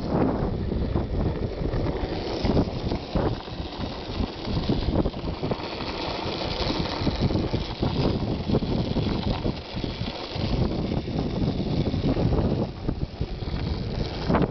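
Wind buffeting the microphone over a steady, uneven rumble of motion, with no clear tones.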